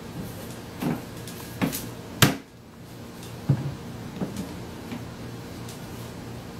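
Hinged plastic lid of a pet food storage bin being pushed open and let fall shut by a scarlet macaw's beak: a series of hollow plastic clacks and knocks, the loudest a little over two seconds in.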